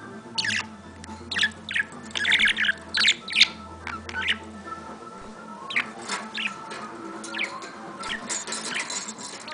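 Pet bird squawking and chirping in a string of short, sharp calls, loudest and busiest in the first half.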